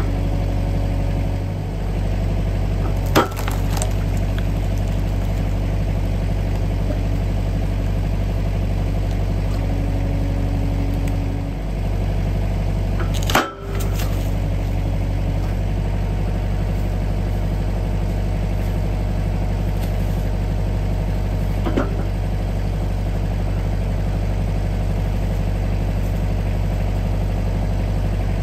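Tractor engine running steadily, powering a hydraulic log splitter whose wedge is driven down through a round of firewood. Sharp cracks and knocks as the wood splits, the loudest about halfway through.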